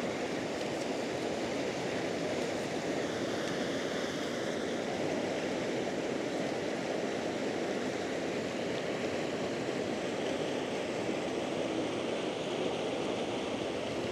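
Steady rush of flowing water, an even continuous noise with no breaks.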